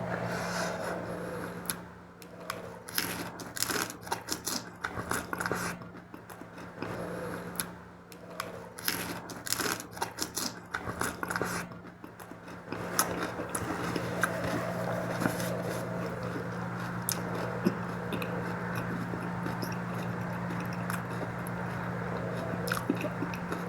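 A person eating mutton curry and rice by hand: scraping and clicking of fingers and food on the plate for about ten seconds, then steadier, softer eating sounds with occasional small clicks, over a constant low hum.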